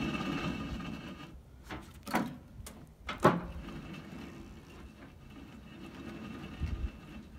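A few sharp knocks, about four in two seconds with the loudest just past three seconds in, as a magnet-fishing rope is tugged to free a magnet caught under a floating dock. A steady low rumble runs underneath.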